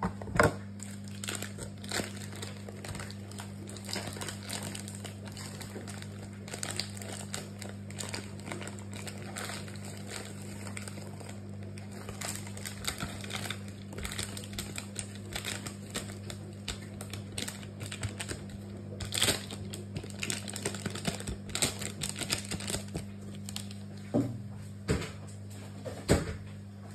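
A steady low hum with scattered crackling clicks throughout, busier in the second half, and a few louder knocks near the end.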